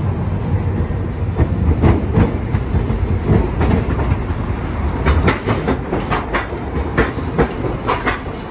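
Hiroshima Electric Railway streetcar no. 807 running past close by on street track, with a low rumble and its wheels clacking over the rails. The clacks come thicker and louder from about five seconds in as the car draws alongside.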